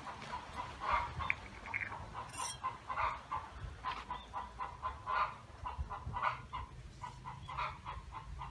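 Chickens clucking in a steady run of short, repeated notes.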